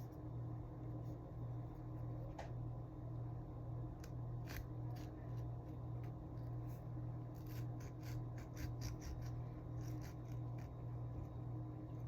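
Faint scattered clicks and taps of small objects being handled, over a steady low electrical hum.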